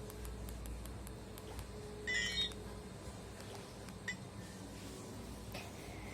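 A short electronic beep from a Nokia feature phone about two seconds in, with a faint click about four seconds in, over low background hiss.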